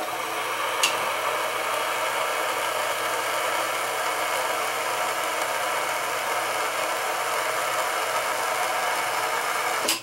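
Steam wand of a 1990 Caffè Italiano espresso machine hissing steadily into a cup of water, siphoning water from the tank through the wand and hose to flush out leftover milk. There is a small click about a second in, and the hiss cuts off near the end.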